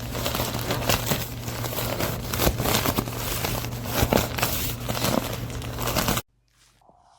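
Inflatable sleeping pad's nylon fabric crinkling and crackling as it is handled, over a steady low hum. It cuts off abruptly near the end.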